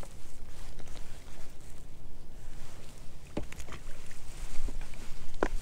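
Water lapping and sloshing around a wading angler, under a steady low rumble of wind on the microphone, with two sharp clicks, one about three and a half seconds in and one near the end.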